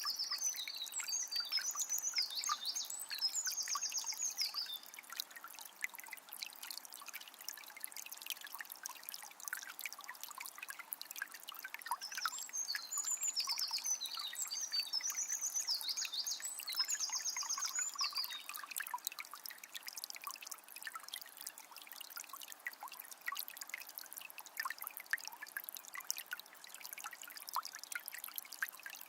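Water of a small spring trickling and splashing steadily. A songbird sings a short high phrase of chirps ending in a trill at the start and again about halfway through.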